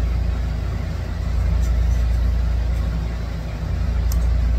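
A steady low mechanical hum, loud and unchanging, with a faint click about four seconds in.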